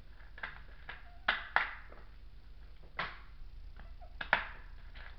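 Five sharp clicks and knocks at uneven intervals over a low steady hum. They sound like something being handled close to the microphone.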